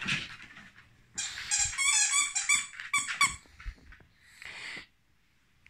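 Squeaky chicken-leg dog toy squeaking again and again as the dog bites down on it: a quick run of high squeaks about a second in, stopping after about three seconds.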